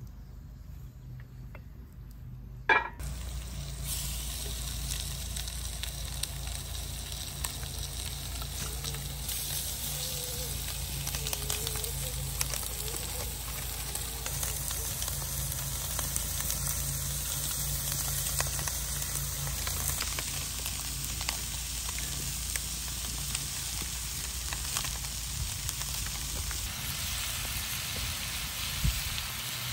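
Fish fillets in coconut oil sizzling and frying in a cast-iron skillet over a wood campfire, with small crackling pops. A sharp click comes nearly three seconds in, and a steady, dense sizzle starts right after it.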